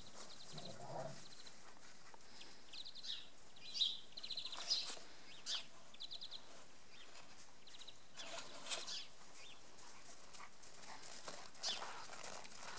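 Faint sounds of a Bernese mountain dog and a Bouvier des Flandres playing in snow: scattered short animal noises and footfalls, busiest a few seconds in and again near the end.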